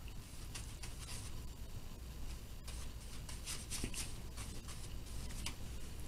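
Faint, short scratchy swishes of a paintbrush working acrylic paint, coming more often in the second half, over a low steady hum.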